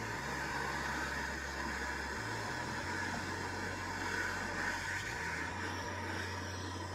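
Hand-held MAP-Pro gas torch burning with a steady hiss as it heats a steel exhaust hanger rod to red heat.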